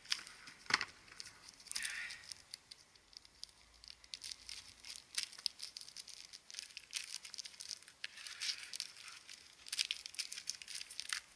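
Black plastic courier bag crinkling and tearing as it is pulled and cut open with scissors: a dense run of small crackles and rips.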